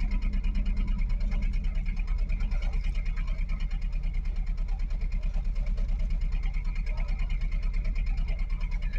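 Sailboat's small inboard diesel engine idling steadily, a fast even chugging with a strong low hum.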